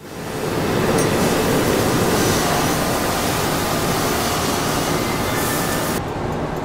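Potato-processing machinery on a french-fry cutting line running with a steady, loud rushing noise. About six seconds in the sound changes abruptly to a duller noise with faint regular ticks.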